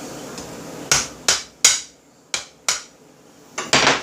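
A hammer tapping lightly on the end of a wooden broom handle to drive the carbine's bolt assembly down past its hammer during reassembly. About seven light, sharp taps start about a second in, coming in small groups, with a closer double tap near the end.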